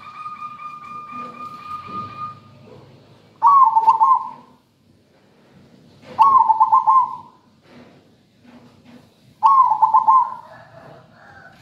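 Caged zebra dove (perkutut) singing: three loud phrases of rapid, stuttering coo notes, each about a second long and about three seconds apart. A quieter steady high tone runs for the first two seconds or so, before the first phrase.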